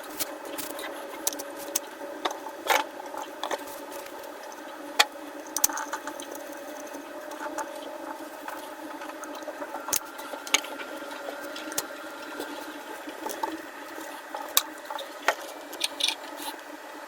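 Irregular small clicks and taps from an Insta360 GO Ultra action camera and its mini tripod mount being handled and adjusted, over a steady background hum.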